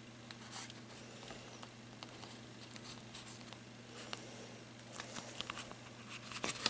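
Faint rustling and crinkling as satin ribbon is handled and pressed around a cling-film-wrapped egg. The rustles grow busier in the last couple of seconds, over a low steady hum.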